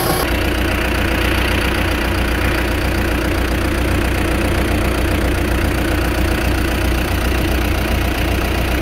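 John Deere 120C excavator's turbocharged 4.5-litre four-cylinder Deere 4045H diesel engine running steadily, heard from just above the open engine bay.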